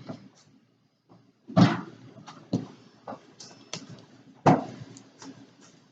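Multimeter and its packaging being handled by hand: a few short knocks and clatters, the loudest about a second and a half in and about four and a half seconds in, with light rustling between.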